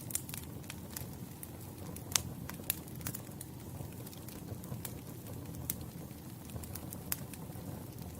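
Campfire burning: a steady low rumble of flames with irregular sharp crackles and pops from the wood, the loudest a little past two seconds in.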